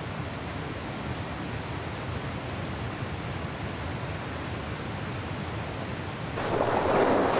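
Rushing water of a river rapid and waterfall, a steady roar that turns suddenly louder about six seconds in.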